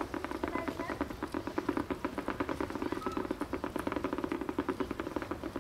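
Fireworks display: a rapid, even crackle of many small pops from a barrage of fireworks.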